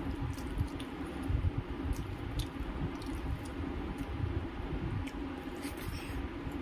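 Fingers squishing rice mixed with ripe mango and potato-paneer curry on a steel plate, followed by chewing with short wet mouth clicks, over a steady low hum.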